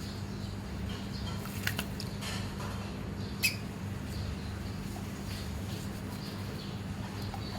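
Sun conure making faint short chirps and squeaks, with a sharp click about three and a half seconds in, over a steady low hum.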